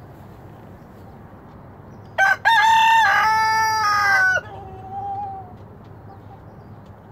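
A rooster crows once, about two seconds in: a short first note, a break, then a long held call lasting about two seconds that stops abruptly, trailing off faintly after.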